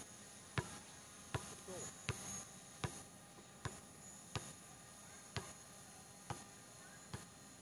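Basketball dribbled on a hard outdoor court, about nine faint, evenly spaced bounces roughly every three-quarters of a second, picked up from a distance by the drone controller's microphone.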